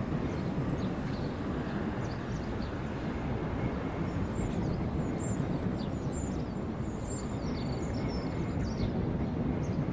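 Outdoor city ambience: a steady low rumble of distant traffic, with small birds chirping faintly through the middle and latter part.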